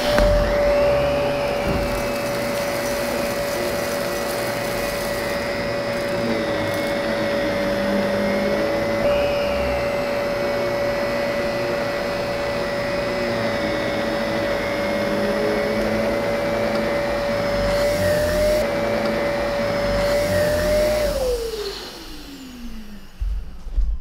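Zero-G bagged canister vacuum with a carpet brush-roll head running on carpet: a steady motor whine over a rush of air. Near the end it is switched off and winds down, the whine falling in pitch as it fades.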